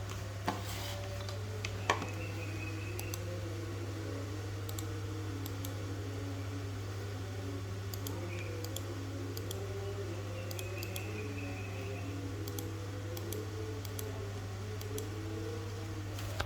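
Steady low hum with two sharp clicks in the first two seconds, and faint indistinct voices in the background.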